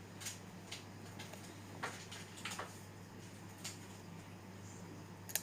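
Scattered light clicks and taps of iPhone housings being handled, about seven in all, the sharpest one near the end, over a steady low hum.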